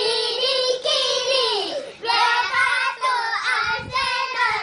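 A child singing in a high voice, holding long notes that bend and then fall in pitch, followed by a quicker run of notes about two seconds in.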